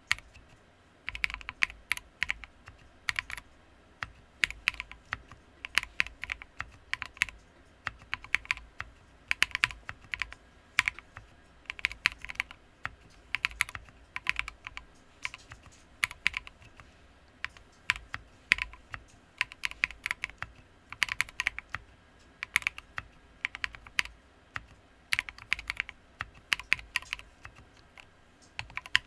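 Typing on a custom mechanical keyboard with lubed Poseidon switches, lubed Cherry stabilizers and MT3 keycaps. The keystrokes come in irregular bursts of quick clicks with short pauses between them.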